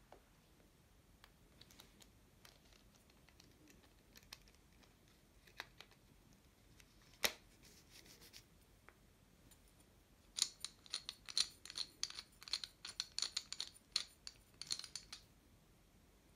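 Clicks and scraping of metal on metal as a small DC motor and a drill's gearbox housing are handled and fitted together. There is one sharp click about seven seconds in, and a quick run of scratchy clicks starting about ten seconds in and lasting about five seconds.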